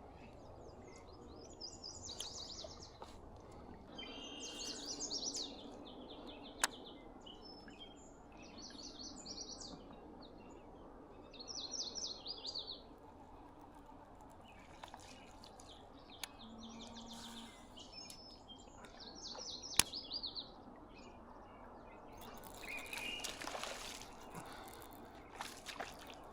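Songbirds singing, repeating short, high, fast-trilled phrases every few seconds, with a couple of sharp clicks.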